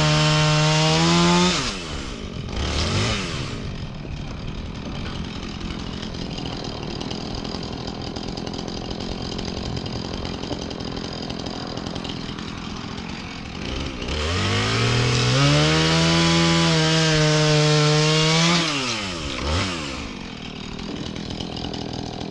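Husqvarna 450 two-stroke chainsaw held at full throttle, dropping to idle about a second and a half in. It idles for a long stretch, revs back up to full throttle for about four seconds two-thirds of the way through, then falls back to idle after one short blip of the throttle.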